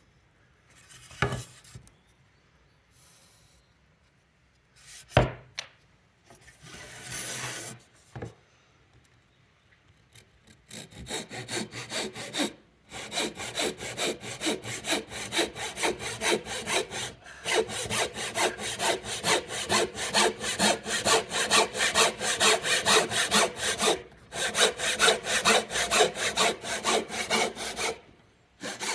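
Japanese hand saw cutting into timber with quick, even strokes, several a second, in runs broken by short pauses: the shoulder cuts of a T-halving joint. Before the sawing starts there are a few separate knocks and a short scrape.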